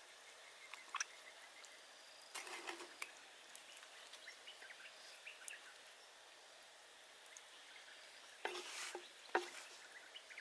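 Cooking handling sounds: scattered small clicks and crackles, with two brief louder rustling, handling noises about two and a half and eight and a half seconds in.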